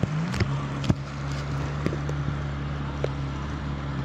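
Outboard motor of a small rescue boat running steadily through floodwater, its pitch rising briefly at the start as the engine speeds up. A few short sharp knocks sound over it.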